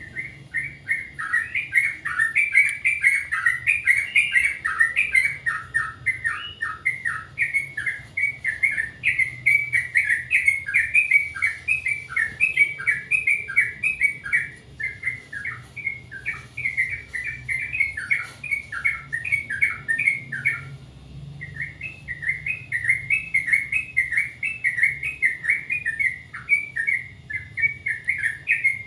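Yellow-vented bulbul singing: a long, near-continuous run of quick bubbly, warbling notes, with a short pause about 21 seconds in.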